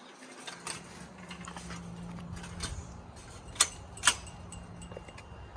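Two sharp clicks about half a second apart, over a faint steady low hum.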